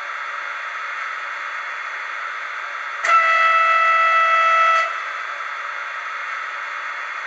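A model locomotive's digital sound decoder plays a Taurus electric locomotive horn through its small speaker: one steady note, just under two seconds long, over a constant hiss.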